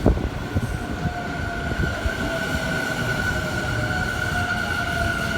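Tobu 50000-series electric commuter train pulling slowly into the platform, with running rumble and a steady high whine over it. A single loud knock comes right at the start.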